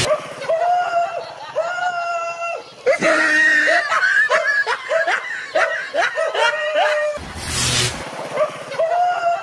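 Laughter of the kind edited into prank compilations: two long, high held notes, then a quick run of short ha-ha notes, then another long note near the end.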